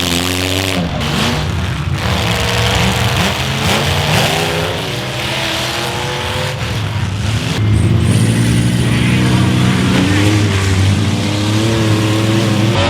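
Derby cars' engines revving hard, their pitch rising and falling again and again as the cars drive and ram each other.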